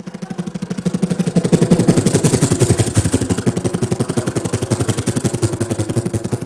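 A man doing a vocal impression of a helicopter into a microphone: a rapid, even chopping pulse like rotor blades, many beats a second, swelling up over the first second or so and then holding steady and loud.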